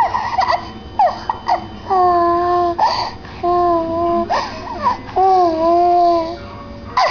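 A young child's voice making funny noises: three long held 'aah' notes at much the same pitch, each lasting about a second, with short squeaky rising and falling yelps between them.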